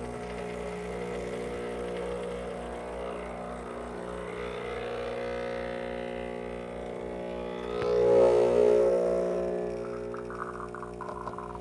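Breville Barista Express's vibratory pump drones steadily during an espresso shot with a pulsing low buzz. It swells louder about eight seconds in as pressure builds through the puck and coffee starts to drip from the bottomless portafilter.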